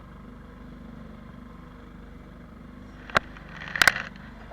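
Boat engine running steadily underway, with a sharp knock about three seconds in and a quick cluster of knocks just under a second later.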